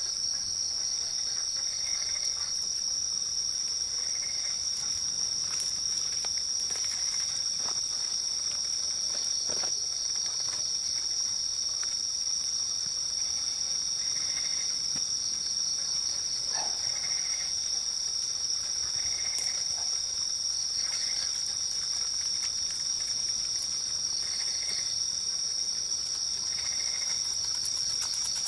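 Forest insect chorus: a continuous, steady high-pitched trill, with a fainter, lower short chirp repeating every two to three seconds.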